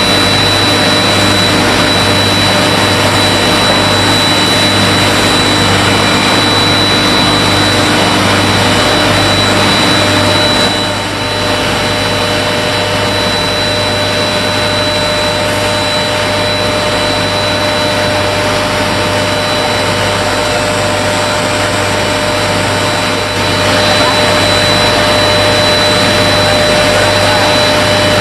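Steady, loud roar of industrial machinery with a constant low hum and a thin high whine, and no hammer blows. It drops slightly in level about eleven seconds in and comes back up shortly before the end.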